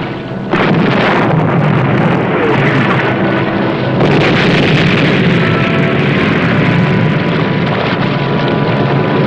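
Sound-effects roar of sea and explosions around a surfaced submarine under gunfire. The roar starts abruptly about half a second in and swells again at about four seconds.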